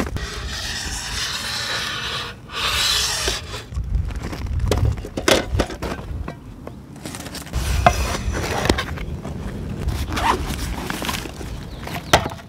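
Scraping and rubbing, then scattered knocks, as a cooking pan is handled on a grill grate.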